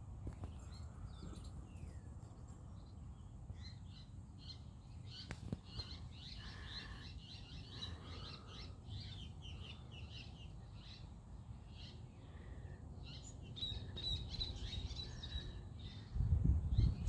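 Wild birds chirping and calling in the background, many short high chirps with a thin, held high trill about two-thirds of the way through. A low rumble sits underneath and grows louder near the end.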